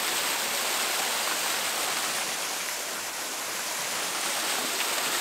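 Small waterfall pouring into a shallow rock pool: a steady, even rush of falling and splashing water.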